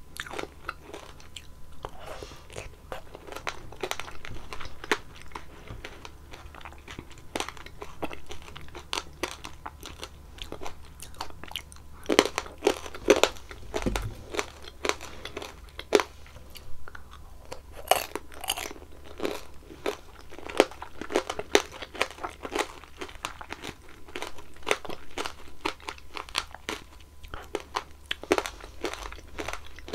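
Close-miked chewing of strawberry tanghulu: the hard sugar candy shell cracks and crunches in irregular sharp bites, mixed with wetter chewing of the strawberries, with a few louder crunches along the way.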